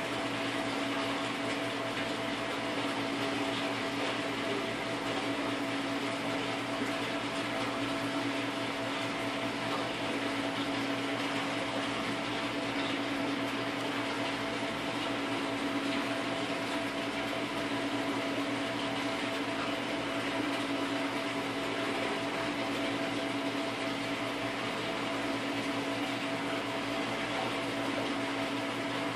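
Steady hum of saltwater aquarium equipment running, with a constant hiss behind it; it does not change.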